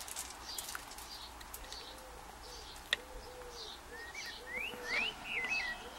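A dove cooing over and over with a low, repeated note, and small birds chirping around five seconds in. Faint sharp clicks of a lock pick working the pins of the padlock, one distinct click about three seconds in.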